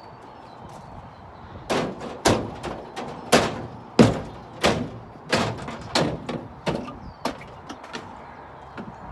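Hammer blows on wood, about ten strikes a little over half a second apart, starting about two seconds in and stopping about seven seconds in.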